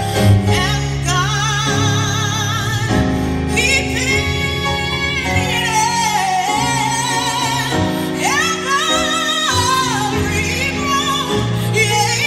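Woman singing a gospel ballad live into a microphone, with heavy vibrato, long melismatic runs and sustained high notes, over a piano holding chords beneath.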